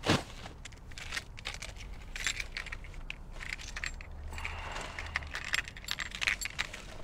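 Rustling and light clinking of small objects being handled, like a bag or package being rummaged through, with many small scattered clicks.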